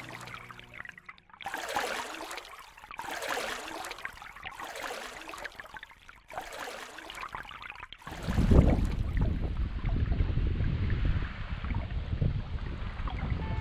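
Water swishing and splashing in a few short bursts split by abrupt cuts, typical of kayak paddling. From about eight seconds in, a louder low rumble of wind buffeting the microphone over water takes over.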